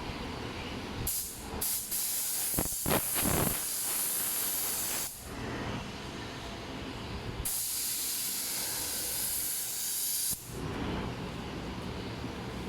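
Spray hissing in bursts of a few seconds, starting and stopping sharply, with a couple of knocks around the third second.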